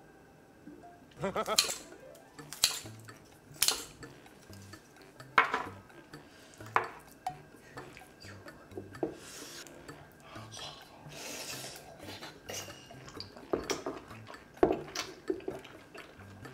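Chopsticks clicking and scraping against a large electric griddle pan as pieces of beef large intestine and fried spicy noodles are picked up: a string of separate sharp clicks spread over several seconds, with softer scraping in between.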